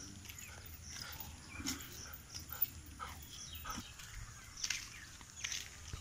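A German shepherd panting and snuffling, with a few short taps and scrapes scattered through.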